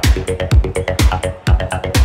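Electronic techno music: a steady kick drum about twice a second, with quick clicking percussion between the beats and a pulsing synth line.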